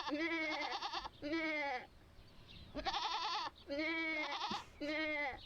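Two goats bleating back and forth, about five wavering bleats in turn, one voice higher and fluttering, the other lower.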